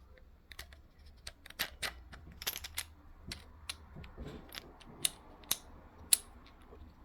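Irregular sharp little clicks and light metal scrapes as a retainer plate is turned and seated in the head of a flashlight.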